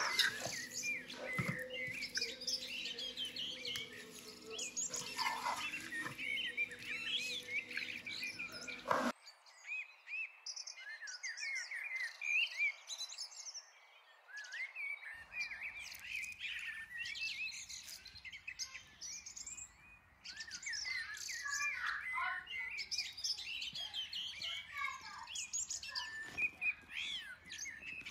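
Many small birds chirping and twittering continuously in quick, overlapping calls. Under the first nine seconds there is a steady low hum with a few clicks and knocks; that hum cuts off abruptly about nine seconds in.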